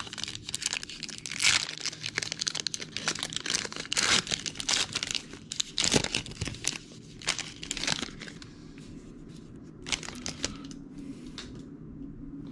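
Plastic wrapping on a trading card box crinkling and tearing as it is ripped open, dense for most of the time and thinning to a few short rustles near the end.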